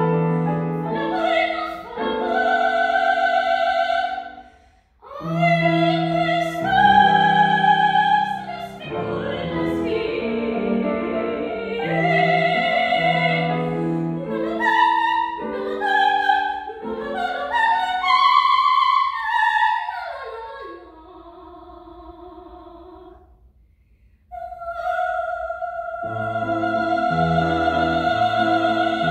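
Operatic soprano singing an aria with grand piano accompaniment. Her phrases break briefly twice; past the middle a high note glides downward, and near the end she holds one long note over low piano chords.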